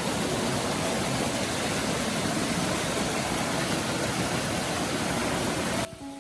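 Rushing water, a steady loud noise with a deep rumble, cut off suddenly near the end.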